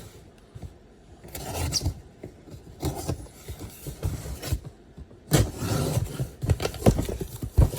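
Cardboard packaging being handled and opened by hand: irregular scraping and rubbing with a few sharp knocks, busiest in the second half.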